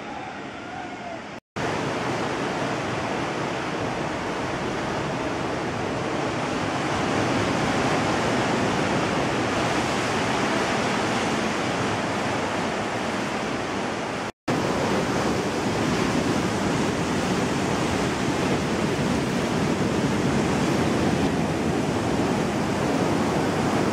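Ocean surf breaking and washing over a rocky reef shore, a steady loud rush of water and foam, broken off twice for a moment.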